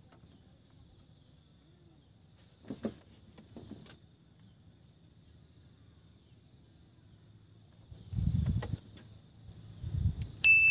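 Quiet open-air ambience with faint insects chirping. From about eight seconds in come bursts of low rumbling noise, and near the end a short high steady beep.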